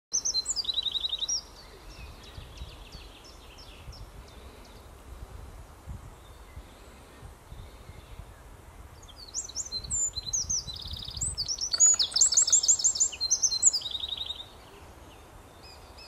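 Eurasian wren singing: a loud burst of high, rapid trills at the start, fainter trills a few seconds later, then a loud song of fast trills lasting about five seconds from about nine seconds in.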